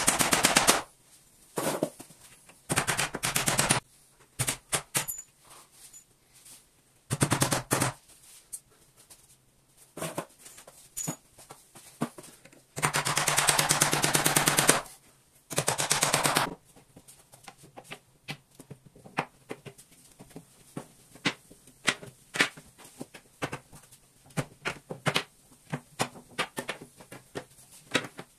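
A power tool hammering very rapidly in short bursts, about seven runs of a fraction of a second to two seconds each, the longest near the middle. Scattered light taps and clicks follow in the second half.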